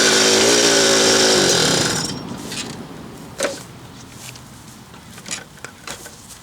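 Puch moped's single-cylinder two-stroke engine running with the odd noise its owner cannot explain, its pitch rising briefly once, then dying away about two seconds in. After that, scattered light clicks and knocks.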